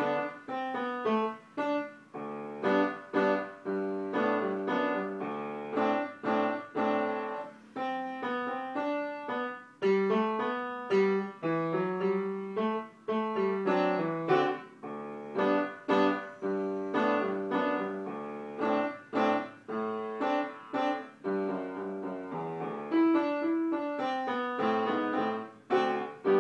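Foro upright piano being played by a child: a continuous piece of struck notes and chords, mostly in the lower and middle range, ending on a last chord.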